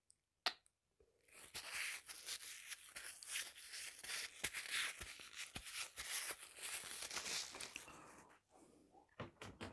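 Hands rubbing together close to a clip-on microphone: a faint, scratchy rustling peppered with small clicks, from about a second and a half in until near the end.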